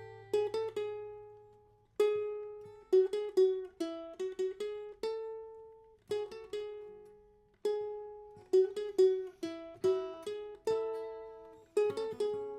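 Instrumental break on a solo plucked string instrument: single picked notes and short runs with a few chords, each note starting sharply and ringing away, in phrases with brief pauses between them.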